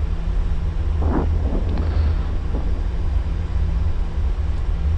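Steady low rumble of an Airbus A340 flight deck while the airliner taxis with all four engines running at idle. A brief faint voice comes through about a second in.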